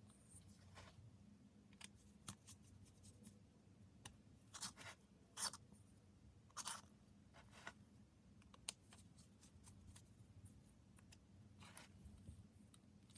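Faint, irregular clicks and short scrapes of small objects being handled, a dozen or so spread out with near silence between them.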